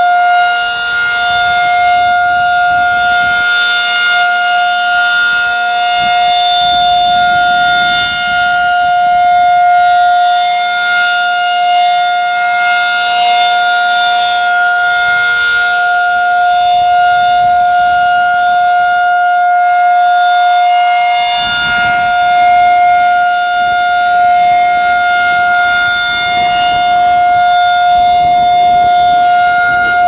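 Federal Signal 2001-SRN electronic siren sounding a steady alert tone, one constant pitch held throughout, while its horn rotates.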